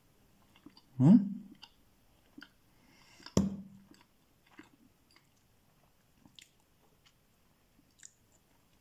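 A man chewing a mouthful of bread roll with sausage and spray cheese, with soft wet mouth clicks. Two short louder low sounds break in, about a second in and about three and a half seconds in.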